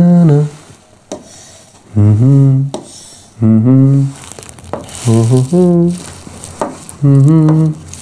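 A man's voice in five short sounds, each under a second and a second or two apart, with a few faint light taps between them.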